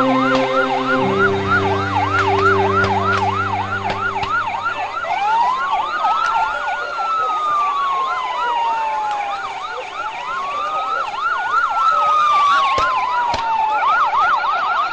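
Emergency vehicle sirens: a fast yelp repeating several times a second throughout, with a slower wail rising and falling twice over it in the second half.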